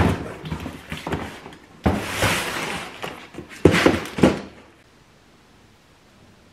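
Cardboard delivery boxes being handled and shifted in a pile: scraping, rustling cardboard and dull thuds, stopping about four and a half seconds in.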